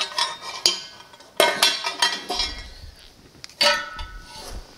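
Metal motorcycle exhaust header pipes clinking and clanking as they are handled and set down on a metal workbench: scattered knocks, with a cluster about a second and a half in and another near the end that rings briefly.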